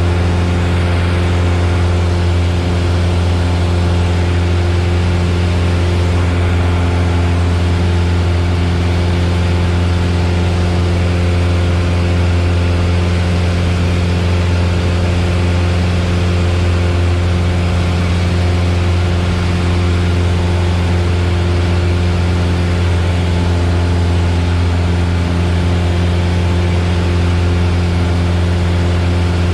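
Steady engine and propeller drone inside the cabin of a Piper Warrior in flight, its four-cylinder Lycoming engine running at an unchanging speed: a deep, even hum over a wide rushing noise, with no change in pitch or level.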